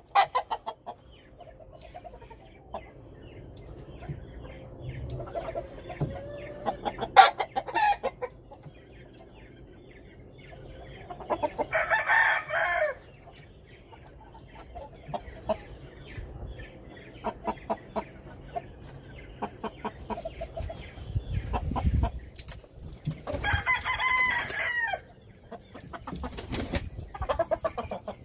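Gamefowl roosters crowing twice, a shorter crow about 12 seconds in and a longer one near 24 seconds, with short clucks from the roosters and hens in between.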